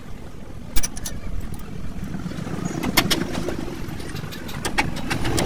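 Sharp metallic clinks and knocks of hand tools on a truck's steel leaf spring assembly, the loudest about a second in and another near the middle, over a steady low rumble.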